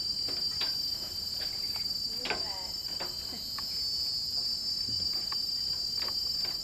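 A steady high-pitched drone of rainforest insects, swelling a little around the middle. Footsteps click and tap on the bridge's metal grating.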